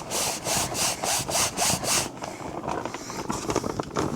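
Rapid rubbing strokes, about four a second, for the first two seconds, then softer scuffing: a fabric food delivery bag being worked back and forth on its mount to square it up.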